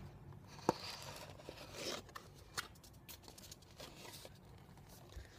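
Faint handling noise: hands moving an orange cardboard carton, with light rustles and scattered clicks, and one sharp click a little under a second in.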